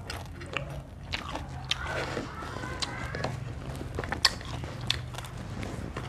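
Close-up mouth sounds of someone biting and chewing crunchy raw food, with a string of irregular sharp crunches, the loudest about four seconds in.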